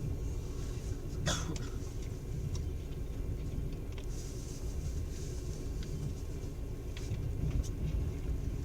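Low, steady rumble of a moving passenger train heard from inside the carriage, with scattered light clicks and rattles and a sharper click about a second in.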